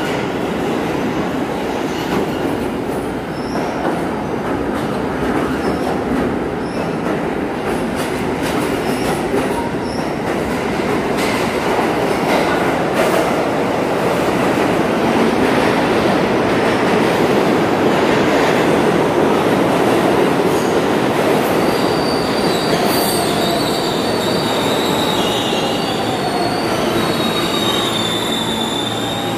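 New York subway train rumbling and clattering along the track, then an R160B Siemens train braking into the station. In the last several seconds its brakes squeal in high steady tones, and a whine falls in pitch as it slows.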